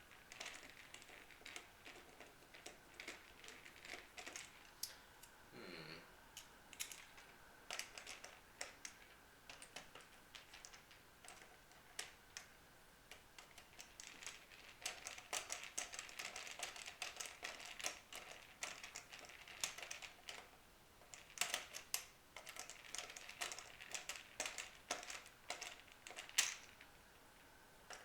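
Screws being driven to mount a Bigsby B5 vibrato on a Vibramate plate on a guitar: faint, irregular clicks and scrapes of metal against metal, busiest in the second half.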